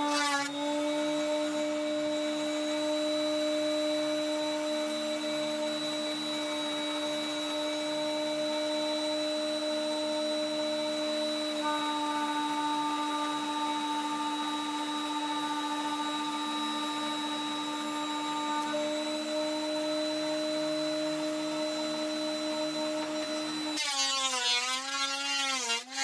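Delta 12½-inch portable thickness planer running as a board feeds through, a steady motor whine. About two seconds before the end the pitch dips and wavers and a louder, rougher cutting noise comes in. The planer's knives are badly nicked, and it is not cutting well.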